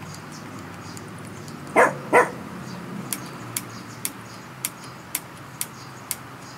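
A dog barks twice in quick succession about two seconds in, then a run of light, sharp clicks follows at about two a second.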